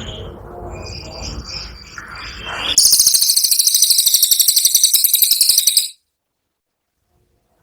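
Cililin songbird singing: a few soft high chirps over a low background rumble, then about a second and a half in it breaks into a loud, very fast, high-pitched trill, the 'tembakan' burst, that lasts about three seconds and cuts off suddenly into silence.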